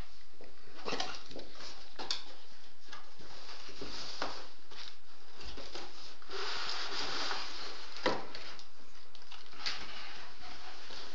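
Cardboard laptop box and packaging being handled: rustling and scraping, with scattered light knocks and a denser stretch of rustling past the middle.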